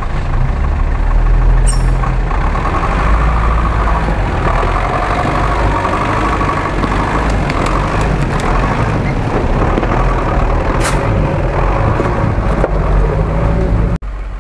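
GAZ-66 truck's engine running steadily under load as the truck crawls past close by, with a couple of sharp clicks in between.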